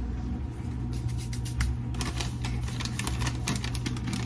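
Quick, light clicks and taps of kitchen food preparation, several a second, starting about a second in, over a steady low hum.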